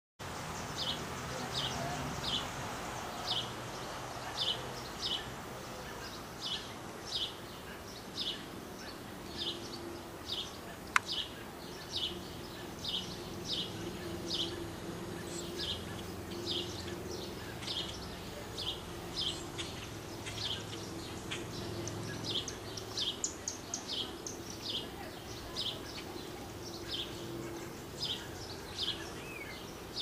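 Bird chirping: short, high, downward-slurred notes repeated steadily one to two a second, with a second chirping bird overlapping partway through. A single sharp click about eleven seconds in, over a faint low hum.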